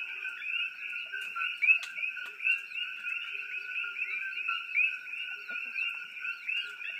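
A dense night chorus of frogs: many short chirping calls, each a quick upward-curving note, overlapping without a break. Above them runs a thin, steady high tone.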